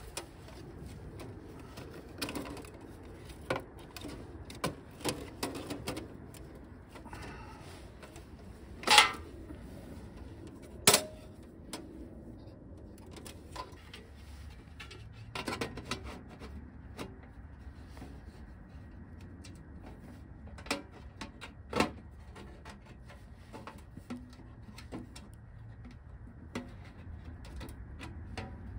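Thin titanium sheet-metal panels of a folding camp wood stove clinking and clanking as it is put together by hand: scattered clicks and knocks, the two sharpest about nine and eleven seconds in and another past twenty seconds.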